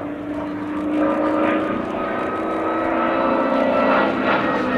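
Hawker Fury ISS's Bristol Centaurus 18-cylinder sleeve-valve radial engine and propeller running in a flying display pass. It grows a little louder about a second in, and the pitch slides gently down in the second half as the aircraft passes.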